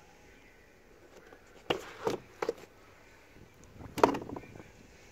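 Plastic engine cover of a VW 2.0 TDI being gripped and pulled off by hand: a few short knocks, then a louder pop just after four seconds in.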